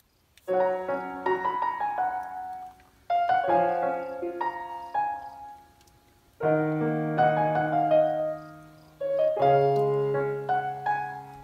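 Solo piano background music: four gentle phrases about three seconds apart, each starting with struck notes that fade away.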